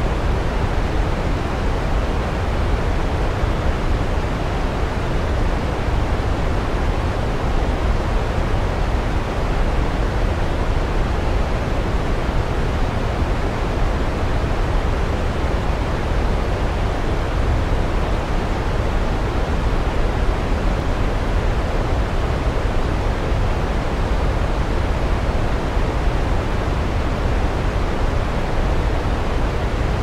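Waterfall: falling water rushing steadily, an even, unbroken noise that is strongest in the low end.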